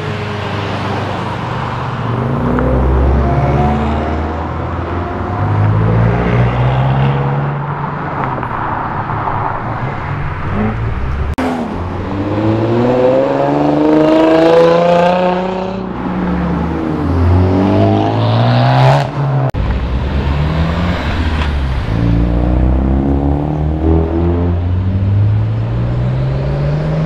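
A string of modified Japanese performance cars, among them a Mazda MX-5, a Lexus IS and an R34 Nissan Skyline, accelerating away one after another. Their engines rise in pitch in repeated pulls, each broken off by a gear change.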